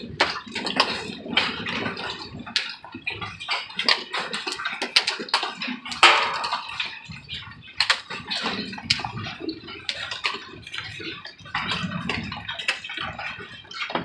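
Hailstorm: hailstones hitting the ground and nearby surfaces as dense, irregular clicks and knocks over a steady hiss, with one louder crack about six seconds in.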